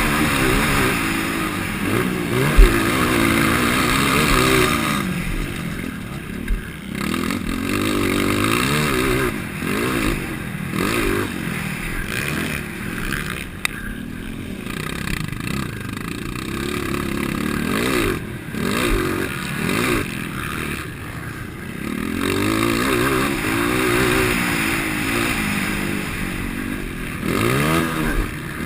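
230 cc motocross bike engine revving hard and falling back over and over as the throttle is opened and shut, with clatter and scraping from the bike. A sharp knock about two and a half seconds in.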